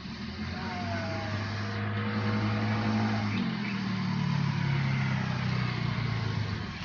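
A motor vehicle's engine, a steady low hum that grows louder, changes pitch about three seconds in, and fades near the end.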